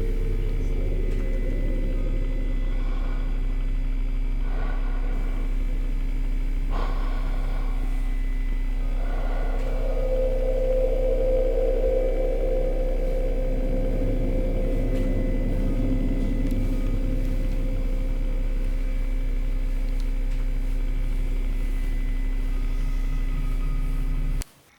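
Steady low rumbling drone with a few held tones above it, swelling a little about ten seconds in, then cutting off abruptly near the end.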